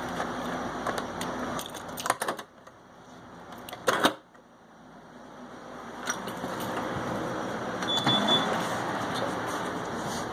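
Remote-operated door lock bolts working, a series of sharp mechanical clicks and clacks with the loudest clack about four seconds in.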